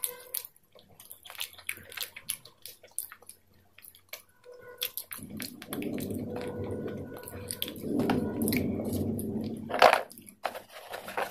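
Close-miked chewing and wet mouth sounds of someone eating: scattered small clicks at first, then a denser, steadier stretch, with one louder sharp crackle just before the end.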